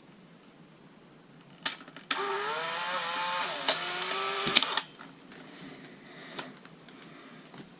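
Polaroid Land Camera OneStep taking a picture: a click, then about two and a half seconds of its small motor whirring as it pushes the print out, rising in pitch at the start and stopping with a click.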